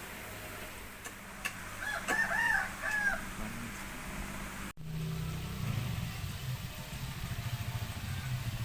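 A rooster crowing, a few rising-and-falling notes about two seconds in. After a sudden cut near the middle, a low engine rumble runs on.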